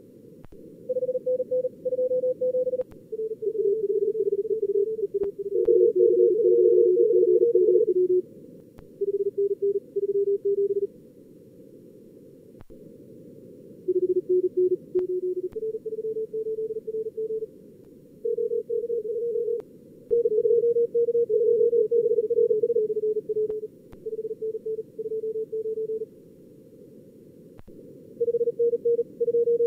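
Simulated Morse code (CW) contest signals from SkookumLogger's practice mode: several stations keyed at about 38 words per minute on slightly different pitches around 400–500 Hz, sometimes overlapping. They sound over a narrow band of receiver hiss, with short stretches of hiss alone between the exchanges.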